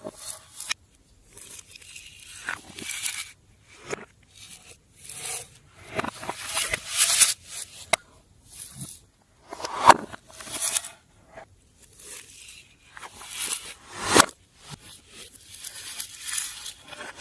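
Hands working slime, stretching, folding and pressing it, with irregular bursts of sticky squishing and clicking and a couple of sharp snaps.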